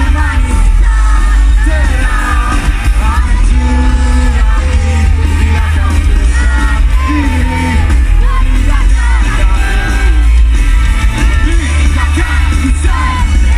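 Live rock band playing loud, with a singer's voice over a heavy, steady bass.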